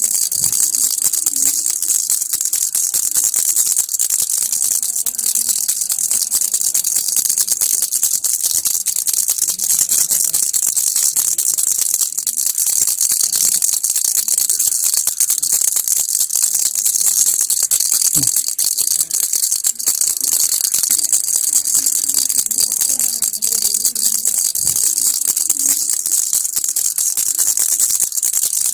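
Baby rattle shaken continuously: a steady, dense rattling without pauses.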